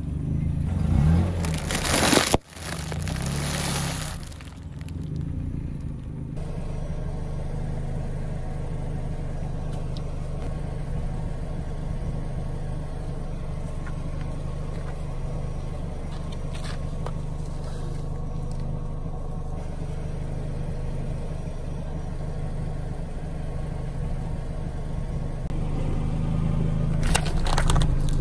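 Car engine idling steadily, with bursts of crackling and squishing as a tyre rolls over and crushes soft objects about two seconds in and again near the end.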